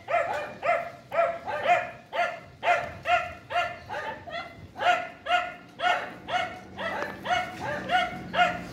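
A dog barking over and over at a steady pace, about two barks a second.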